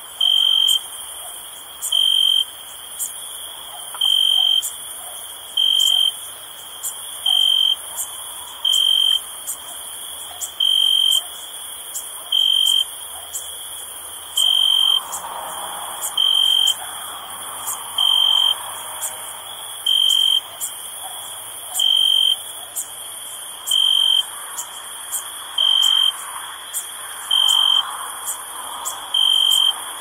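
Crickets chirping at night. A loud, high trill about half a second long repeats roughly every two seconds over a steady, high-pitched chorus of insects.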